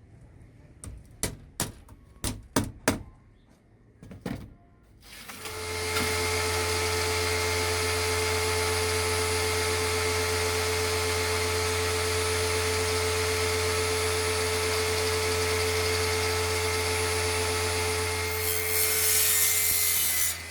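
A run of sharp knocks in the first few seconds, then an electric power tool starts and runs at a steady pitch while wood is worked. Near the end a hiss joins the motor sound and grows louder.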